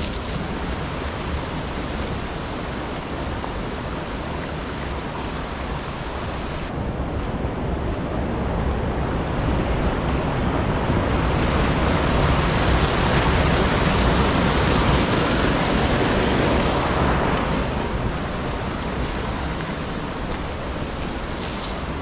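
Mountain stream water rushing in a steady wash. It swells louder and hissier through the middle and falls back near the end.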